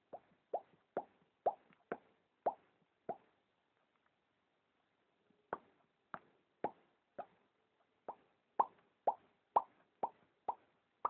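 A sleeping house cat making short, quick clicking noises with its breathing, about two a second. They stop for about two seconds a third of the way in, then resume and grow louder near the end.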